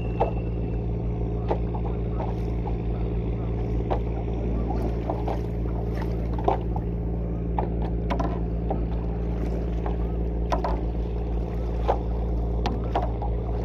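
Stand-up paddleboard being paddled: short irregular splashes and knocks of water against the board and paddle, over a steady low hum.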